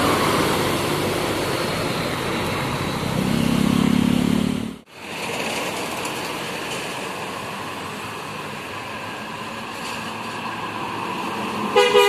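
Tour bus engine and road noise as buses pass. A low horn sounds for about a second and a half, three seconds in, and cuts off suddenly. Just before the end a bus's multi-tone telolet horn starts to play.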